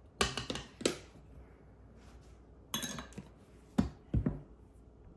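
A handful of separate clinks and knocks, about five in all, as kitchen containers and utensils are handled and set down while mixing ingredients in a bowl.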